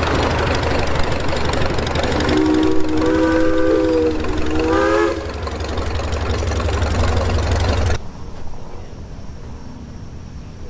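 A steam whistle blows a chord of several tones for about three seconds, its pitch bending up just before it stops, over an engine running steadily. The engine sound cuts off abruptly about eight seconds in, leaving fainter outdoor background.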